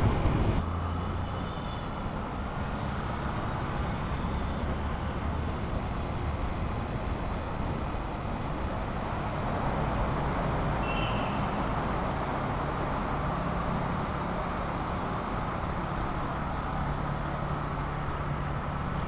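Motorcycle riding at about 70 km/h heard from a microphone inside the rider's helmet: a steady rush of wind and road noise with the engine's low hum beneath it. It is the wind blast left after the helmet-mic adjustments, which the rider hopes is now reduced.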